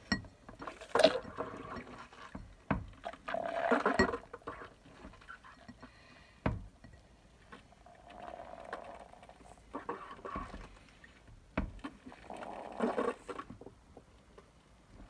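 Beer spurting and splashing into a pint glass through the tube of a homemade hand-pumped beer engine, in about five separate spurts, one per pump stroke, with a few sharp knocks between them.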